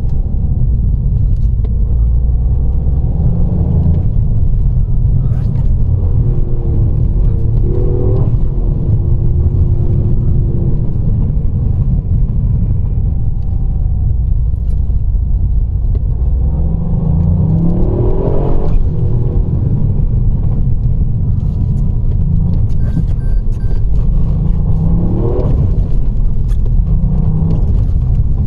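Car driving along a road: a steady low engine and road rumble, with the engine note climbing several times as it accelerates.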